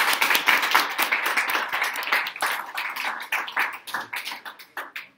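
Audience applauding: dense hand clapping that thins out into a few separate claps and stops near the end.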